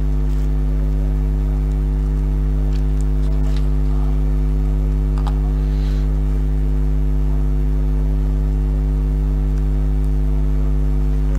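Steady low electrical hum with a ladder of overtones, loud and unchanging, with a few faint ticks in the middle.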